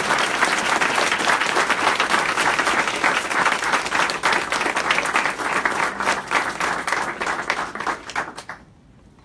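Audience applauding: many people clapping together, dense and steady, then dying away about a second before the end.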